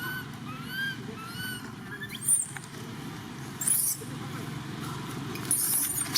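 A run of short chirping calls that rise and fall, about one every 0.7 seconds for the first two seconds. A sharp high squeak follows, then two bursts of high hissing rustle.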